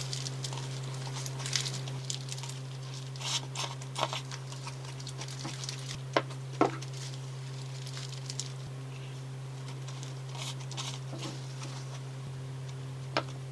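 Close-miked eating sounds: bites and chewing of a paper-wrapped salmon burrito, with scattered crinkles of the wrapper and the squeeze of a sriracha bottle, over a steady low hum.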